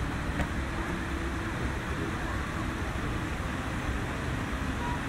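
Steady rushing background noise of water falling over the fountain steps mixed with city traffic rumble, with one faint click about half a second in.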